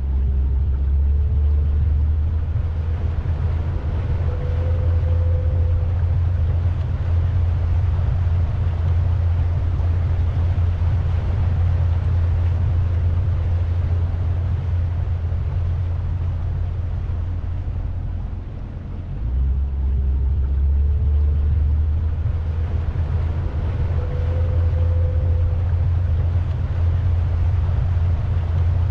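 Pontoon boat's engine running under way, a steady low rumble mixed with wind and water noise on the bow camera. The rumble dips briefly about two-thirds of the way through and then picks straight back up.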